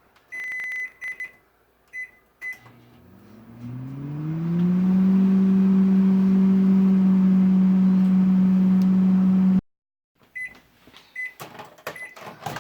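Microwave oven keypad beeping as it is set, then the oven starts with a hum that rises in pitch for about two seconds and runs steadily. The hum cuts off suddenly near the end, followed by three evenly spaced beeps.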